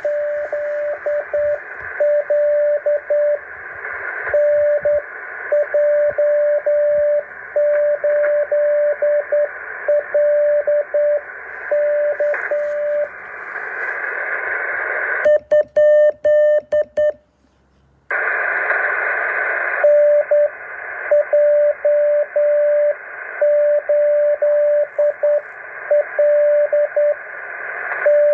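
Morse code received over a radio: a single steady tone keyed on and off in dots and dashes over constant receiver hiss. A little past halfway the hiss drops away and the keyed tone sounds harsher and clicky, then the audio cuts out for under a second before the hiss and the keying return.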